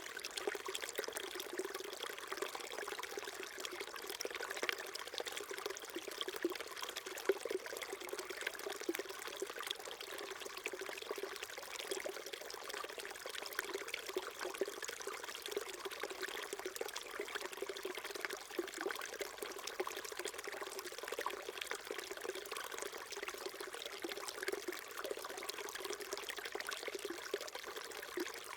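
A small stream flowing and babbling steadily, with trickling water.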